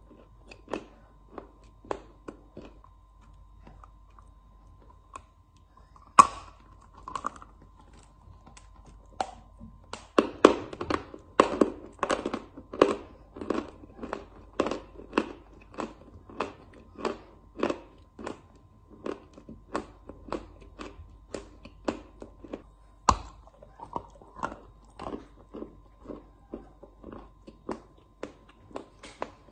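Close-up crunching of a lump of chalk being bitten and chewed: a sharp bite about six seconds in, then fast crunchy chewing at two to three crunches a second, with another hard snap a little over twenty seconds in.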